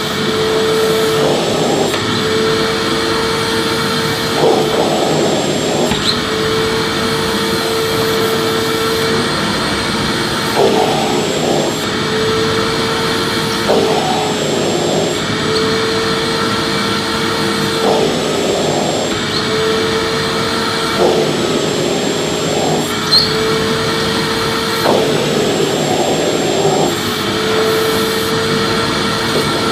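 Vacuum cleaner running continuously: a loud, steady rushing hiss over a motor hum. The hum wavers briefly every two to three seconds.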